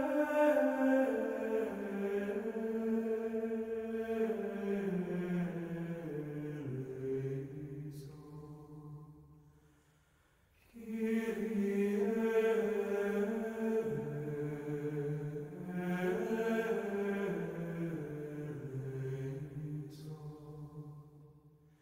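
A slow, unaccompanied sung chant moving in small steps up and down, in two long phrases that each fade out, with a short pause about ten seconds in.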